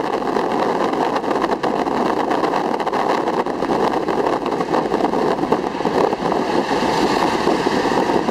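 Jeepney engine running and road noise, heard from aboard as it drives along: a steady, unbroken rumble with small clicks and rattles.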